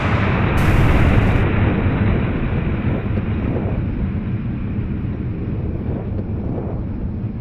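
Deep rumbling roar of a rocket launched from a truck-mounted multiple rocket launcher, dying away slowly as the rocket flies off.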